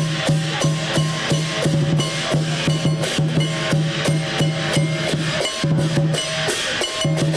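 Chinese drum, gong and cymbal percussion in lion-dance style, playing a loud, fast, steady beat with the metal ringing on between strikes.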